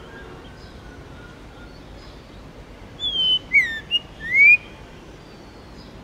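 White-rumped shama singing one short, loud whistled phrase about halfway through: a falling note, a quick falling slur, then a rising whistle, with faint high twitters over it. Faint chirps from other birds sit in the background.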